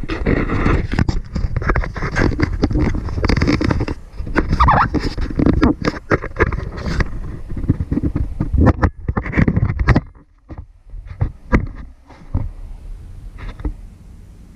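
Handling noise from a small action camera being gripped and moved: a dense run of knocks, scrapes and rubbing right at the microphone, easing off briefly about ten seconds in.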